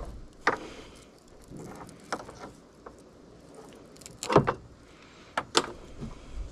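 Several sharp clicks and clacks of hand tools working on electrical wire, spaced a second or two apart, the loudest a double click about four seconds in and two quick ones near the end.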